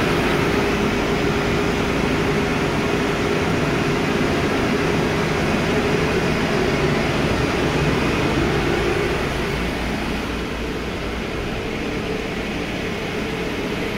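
Steady loud drone of a container ship's engine-room machinery, with a constant hum running through it, dropping a little in level about nine seconds in.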